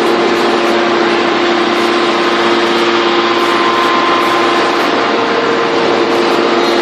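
Hydraulic scrap baler running steadily, a constant machine hum with a steady pitch over a dense hiss; a higher tone joins about five seconds in.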